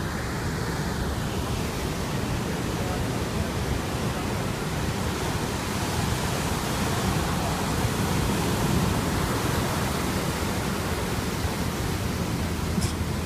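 Heavy shorebreak surf breaking and washing up a sand beach: a steady rushing noise that swells a little midway.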